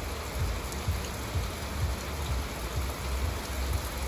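Heavy rain pouring down steadily, a dense even hiss with an unsteady low rumble underneath.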